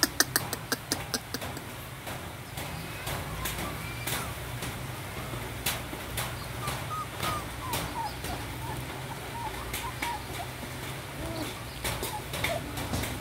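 Several puppies eating together, with wet chewing and lapping clicks, a quick run of them at the start and scattered ones after. Faint short high chirps and squeaks come and go over a steady low hum.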